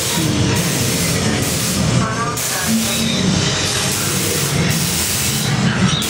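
Steady rushing hiss of water and spray around a flume ride boat, loud and unbroken.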